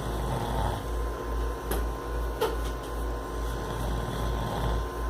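A man snoring in his sleep: a steady low rumble that pulses about twice a second.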